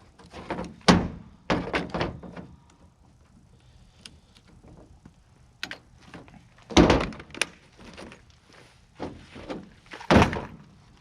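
A handful of separate heavy metal clunks and knocks from a pickup truck's tailgate being worked on, the loudest at about a second in, around seven seconds and around ten seconds.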